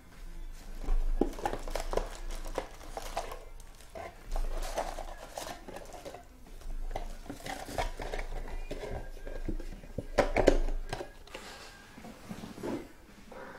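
Clear plastic shrink-wrap being crumpled by hand while foil trading-card packs are pulled from their box, shuffled and set down in stacks, making irregular crinkling and light clatter.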